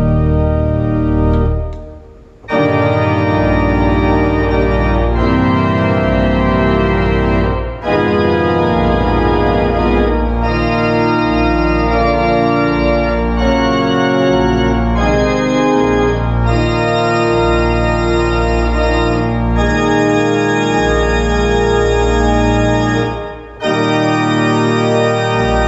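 Organ played with hands and pedals in a hymn arrangement: full sustained chords over a deep pedal bass, with brief breaks between phrases about two seconds in, near eight seconds, and near the end.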